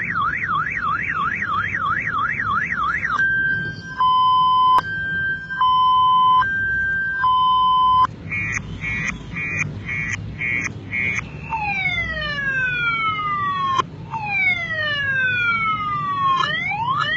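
Car-alarm siren tones cycling through a sequence: a fast rising-and-falling wail about two or three times a second, then a louder two-note high-low alternation, then rapid beeping pulses, then repeated falling sweeps, and rising sweeps near the end.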